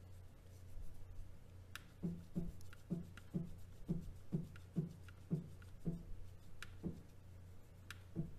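Z axis of a CNC-converted Grizzly G0704 mill jogging down one thousandth of an inch at a time: a short buzz from the drive motor with each step, about two or three a second, over a steady low hum, as the end mill is brought down to touch off on a shim. A few sharp light clicks come in between.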